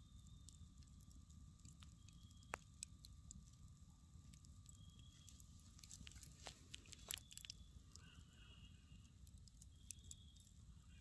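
Wood campfire crackling faintly, with scattered sharp pops, the loudest about two and a half and seven seconds in.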